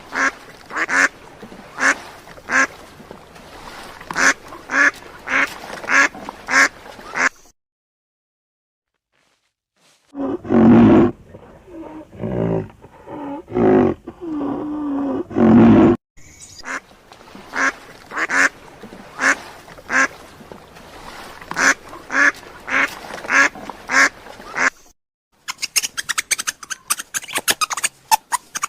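Duck quacking in short calls repeated about three a second, in two runs with a silent gap between. In the middle come a few seconds of longer, lower animal calls, and near the end a rapid run of fine ticks.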